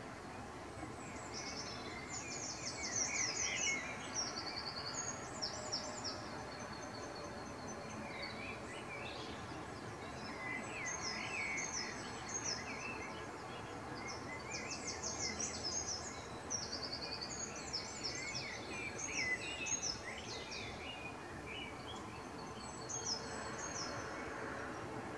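Birds singing outdoors: repeated quick, high chirps and trills, over a steady background hiss.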